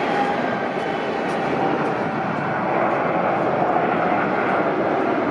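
Air India Boeing 787-8 Dreamliner's GEnx-1B turbofan engines at takeoff thrust as the jet rotates and climbs away: steady jet noise with a faint whine, growing louder about halfway through.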